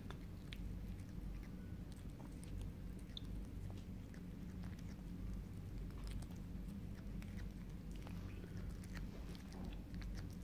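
A kitten chewing and biting chopped hard-boiled egg, with soft, irregular clicks of mouth and teeth.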